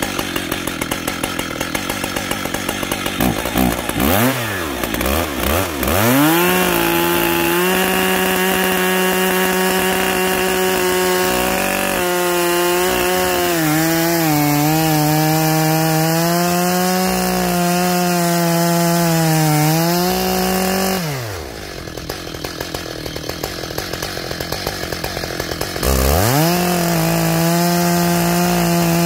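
Stihl MS880 two-stroke chainsaw idling, then blipped and held at full throttle cutting through wood, its pitch sagging a little as it loads in the cut. About three-quarters of the way through it drops back to idle for a few seconds, then goes back to full throttle near the end.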